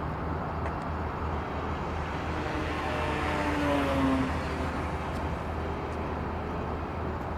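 Radio-controlled Yak 55M aerobatic plane flying past: its motor tone swells to a peak about four seconds in and drops in pitch as it goes by, over a steady background rumble.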